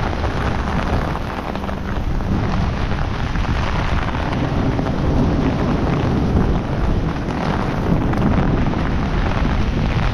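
Heavy rain pouring down steadily, with wind buffeting the microphone as a low rumble underneath.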